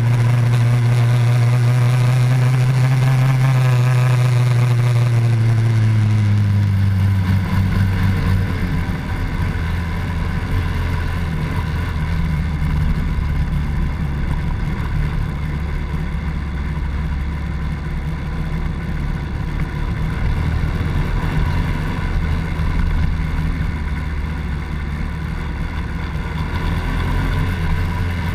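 Honda Dax 70cc's single-cylinder four-stroke engine running on the road, its note dropping about six seconds in as the throttle eases, then running steadily at a lower pitch with wind rush underneath.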